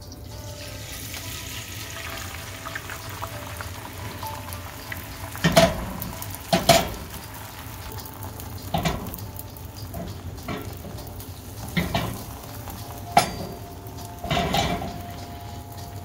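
Beaten eggs sizzling as they hit a hot, oiled cast-iron skillet, the hiss strongest at first and slowly thinning as the eggs set. From about a third of the way in come about eight sharp clinks of utensils against the pan or bowl.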